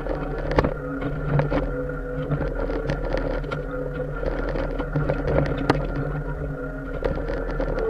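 Mini excavator's diesel engine running steadily under hydraulic load, with sharp clanks and scraping from the bucket digging into the ground.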